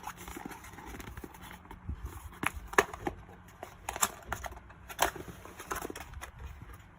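Hands opening a small box, making irregular clicks, taps and knocks, the sharpest about three seconds in.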